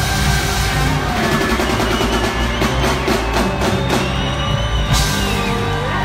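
A live band playing a rock song at full volume. About halfway through there is a fast run of drum hits, and a cymbal-like crash comes about five seconds in.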